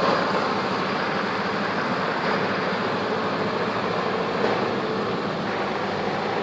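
Heavy six-wheel-drive off-road truck's engine running steadily.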